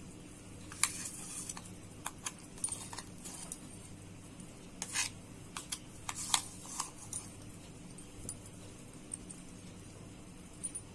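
Scattered light clinks and scrapes of a steel spoon and steel bowl against a steel plate while thick ground urad dal paste is scraped out of the bowl.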